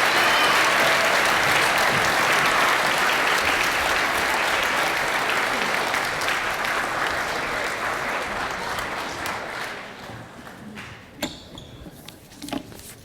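Audience applauding in a school assembly hall, dense clapping that fades out gradually and dies away by about ten seconds in, leaving a few scattered knocks near the end.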